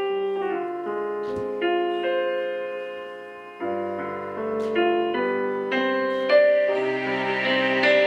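Instrumental interlude of a slow gospel song's piano accompaniment: chords struck every second or so and left to ring out, growing fuller near the end.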